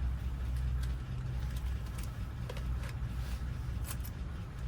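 A steady low hum with a few faint light clicks of small lock pins and tools being handled while a door lock cylinder is rekeyed.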